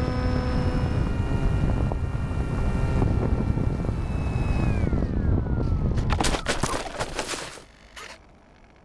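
Electric motor and folding propeller of an FX-61 Phantom flying wing whining steadily with wind rushing past, then falling in pitch as the throttle is cut. Then about two seconds of scraping and rustling as the wing belly-lands and slides through dry stubble, stopping near the end.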